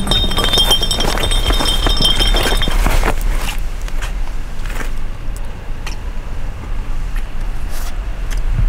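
Glass bottle rolling and clinking across hard ground, ringing with a high tone for about three seconds, then a steady low background rumble with a few faint clicks.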